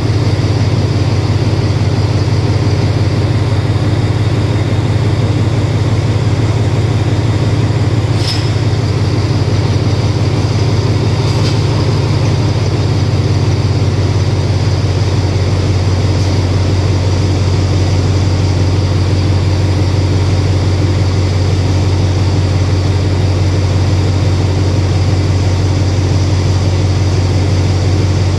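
Alsthom diesel-electric locomotive idling at a standstill, its engine running with a steady, loud low hum. A few short, high hisses come about eight and eleven seconds in.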